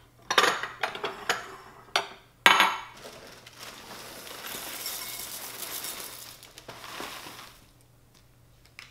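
Glass bowls clinking against each other as they are lifted apart from a stack, then frosted corn flakes poured from the box into a glass bowl, a steady dry rustle lasting about four seconds.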